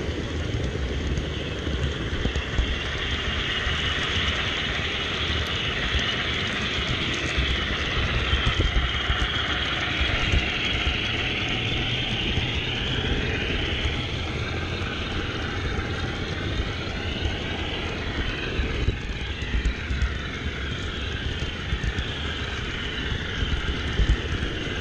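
Steady rumble and clatter of an HO-scale model train rolling on its track, heard from a small camera riding on board one of the cars.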